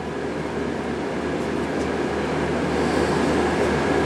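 Steady mechanical drone in a body shop, with a faint high whine held on one note, growing a little louder toward the end.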